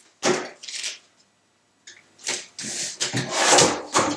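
Tape being pulled off the roll in rasping peels and pressed onto the cardboard frames of air filters. One short peel at the start, a pause, then a longer stretch of peeling and rustling from about two seconds in.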